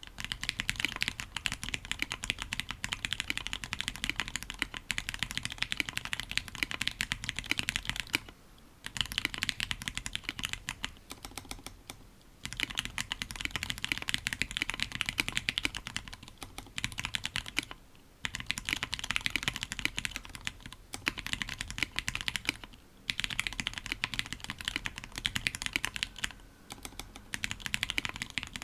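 Octagon V3 mechanical keyboard with Tealios V2 linear switches, lubed with Krytox 205g0, on an FR4 plate: fast typing, a continuous clatter of keystrokes in runs of several seconds with brief pauses between them.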